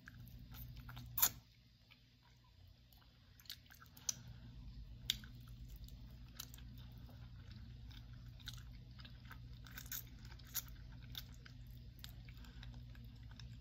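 A person biting and chewing roast chicken eaten by hand, close up, with scattered crunchy clicks as she bites, the sharpest about a second in. A steady low hum runs underneath.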